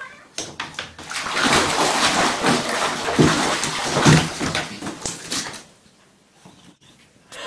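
Water noise in a bathtub while a pet is bathed, loud for about four seconds and then dying away, with a few low thuds in the middle.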